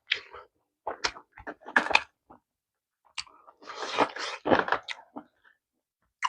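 Close-up mouth sounds of a person eating pork kimchi stew: chewing and smacking in short, irregular bursts with silent gaps between them.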